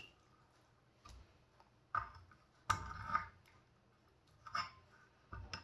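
A handful of short, light clicks and knocks, the longest a brief clatter about three seconds in, as a sharpening stone is taken from its soaking tub and clamped into the arm of an Edge Pro sharpening rig.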